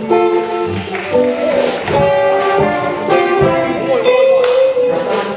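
Amateur brass band playing a jazz-flavoured tune, with one note sliding upward about four seconds in.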